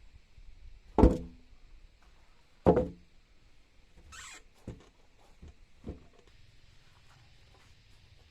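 Two heavy knocks about a second and a half apart, followed by a short hiss and a few lighter knocks, typical of work on timber with hand tools.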